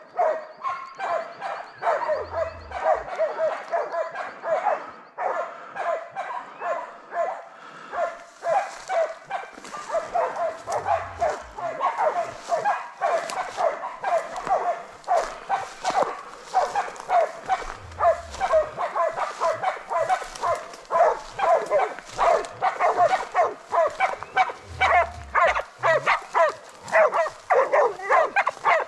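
Hunting dogs barking rapidly and without a break, several barks a second, louder near the end. This is bail-up barking: the bailing dogs are holding a wild boar at bay.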